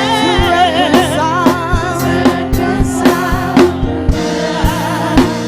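Live gospel worship music: a sung vocal line with vibrato over held keyboard chords, with a drum kit keeping a steady beat of about two hits a second.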